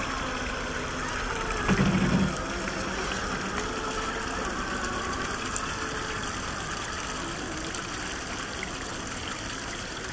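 Steady rush of stream water over rock, with the faint whine of the RC crawler trucks' electric motors and gears rising and falling under it. A short low thump about two seconds in is the loudest sound.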